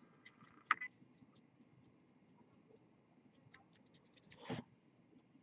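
Faint scattered ticks and light scratching close to the microphone. There is a sharper tick about a second in, and a brief cluster of ticks followed by a short louder rustle near the end.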